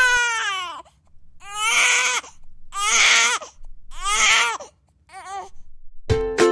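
A cartoon character crying in a series of about five loud wails, each falling in pitch. Plucked-string music, like a ukulele, starts near the end.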